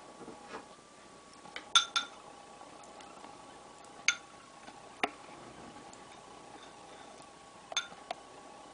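Ceramic spoon clinking against a porcelain bowl while scooping rice porridge: light clinks with a short ring, three close together about two seconds in, single ones near four and five seconds, and two near the end.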